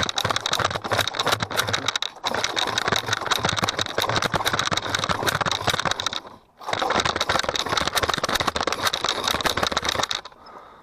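A cheap Chinese 50cc two-stroke scooter engine being cranked over in three long attempts, with short pauses between them. It does not catch: the engine has stalled and won't restart.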